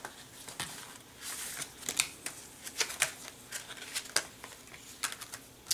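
Clear plastic die packaging crinkling and rustling in the hands as it is opened and a paper insert card is slid out, with many short light clicks and ticks.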